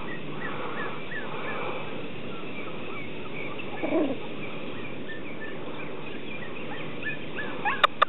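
Ruby Cavalier King Charles Spaniel puppy gives a single short yip about halfway through, over steady background noise and scattered high chirps. Near the end come a few quick rising squeaks and a sharp click.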